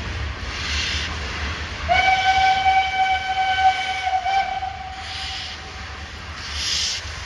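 Steam locomotive 141 R 840 sounding its steam whistle: one clear chord-like blast of about two and a half seconds starting about two seconds in, with hisses of steam exhaust coming roughly every second and a half as it pulls slowly away.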